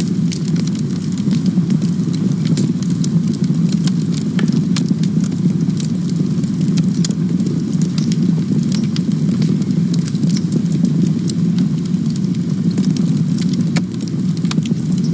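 Campfire burning with a steady low roar and frequent sharp crackles and pops from the burning wood.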